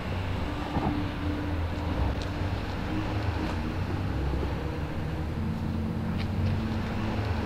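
Steady low rumble of street traffic, with a faint held engine hum and a few light clicks.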